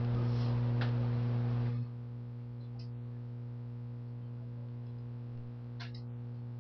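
Steady low electrical mains hum, loud for about the first two seconds, then dropping suddenly to a quieter level and running on, with a few faint clicks.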